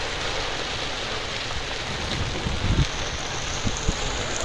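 Steady hiss of heavy rain falling, with gusts of wind buffeting the microphone.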